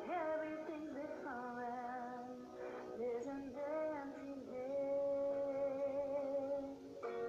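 A young woman singing a slow melody over a soft backing track, holding long notes with vibrato, the longest from about halfway through to near the end: a Smule karaoke recording played back on a phone.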